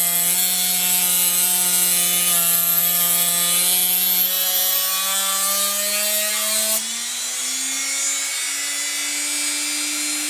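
A jig-mounted rotary tool whines steadily while its sanding drum grinds a flat onto a thin wooden dowel being drawn through it, with a harsh sanding hiss over the motor. The motor's pitch rises gradually in the second half. About seven seconds in the sanding hiss stops suddenly as the dowel comes clear, and the motor runs on alone at the higher pitch.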